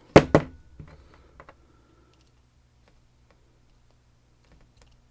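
Two sharp metallic clicks in quick succession, then a few lighter clicks and taps, from the M&C Condor lock being handled; after about a second and a half only faint scattered ticks remain.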